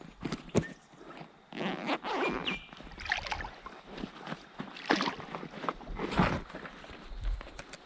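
Irregular splashing and sloshing of river water close by, in a series of short bursts.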